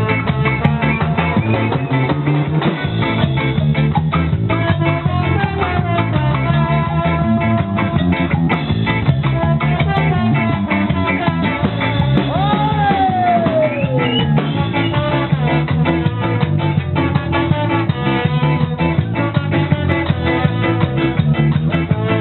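Live ska band playing: electric guitar, drum kit and horns (trombone and saxophone) over a steady beat. A little past halfway, one horn plays a long falling glide.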